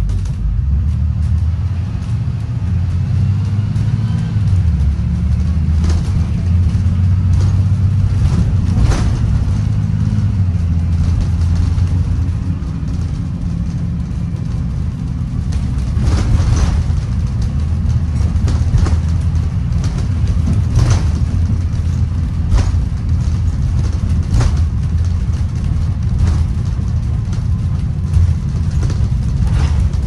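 2016 Blue Bird Vision school bus heard from inside the passenger cabin while driving: a steady low engine and road rumble whose pitch shifts a little a few seconds in, with occasional short knocks and rattles from the body.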